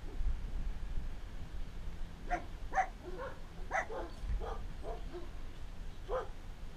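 A dog barking: a quick run of about eight short barks over roughly three seconds, then a single bark near the end.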